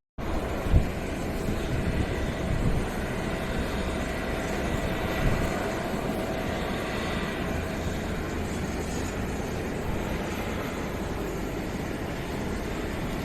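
Jet airliner engines running, a steady rushing noise with a faint high whine, heard from the airport deck. Wind buffets the microphone now and then, with a sharp thump about a second in.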